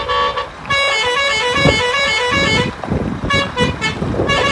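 A musical vehicle horn sounding a quick tune of short, buzzy notes that step up and down, with some low rumbling underneath.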